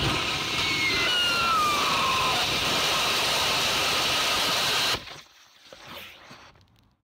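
Student-built hybrid rocket motor burning paraffin wax with gaseous oxygen, firing with a loud, steady rushing noise, with a couple of faint falling whistles in the first two seconds. The burn cuts off abruptly about five seconds in, leaving only faint sounds.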